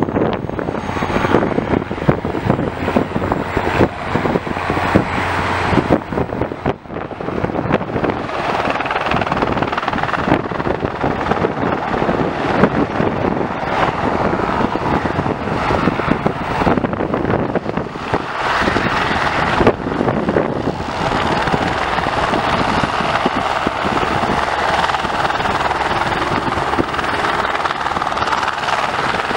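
Eurocopter AS350 B3 helicopter hovering close by: the rapid chop of its main rotor over the whine of its single Turbomeca Arriel turboshaft engine, loud and steady. The higher whine grows stronger about two-thirds of the way through.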